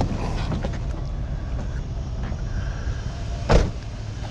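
A motor vehicle running with a steady low rumble, and a single sharp thump about three and a half seconds in.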